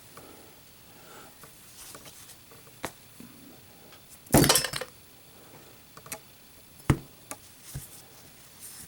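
Zippo lighter's steel insert dropped into its case for a drop test, with a short burst of metallic clatter about halfway through and several sharp single clicks of metal on metal around it. The insert slides in smoothly, which shows a good fit.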